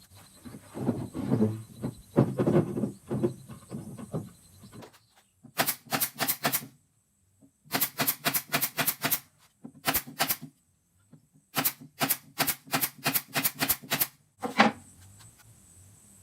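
Irregular knocking, then several quick runs of sharp, evenly spaced clicks, about five or six a second, with short dead-silent pauses between the runs.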